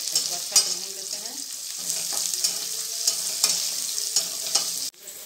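Chopped onion and garlic sizzling in hot oil in a kadai, stirred with a metal spatula that scrapes and clicks against the pan several times. The sound cuts off abruptly near the end.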